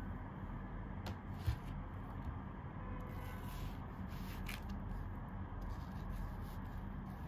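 Kitchen knife slicing through watermelon on a wooden cutting board: a few faint scraping cuts and clicks, with a soft knock of the blade on the board about a second and a half in, over a steady low hum.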